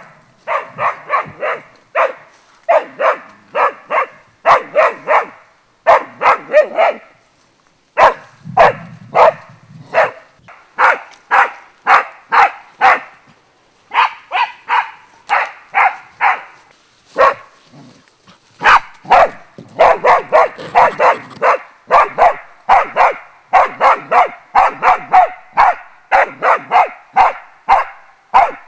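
Young springer spaniel barking without let-up, in rapid runs of about four barks a second with a few short breaks: bay barking at wild boar.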